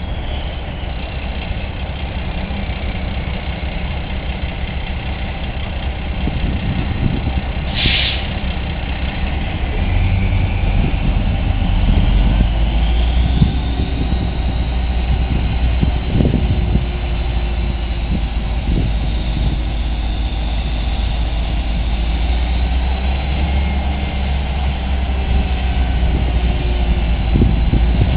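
Truck engine running at idle, its low rumble growing heavier about ten seconds in. A brief high squeal cuts in about eight seconds in.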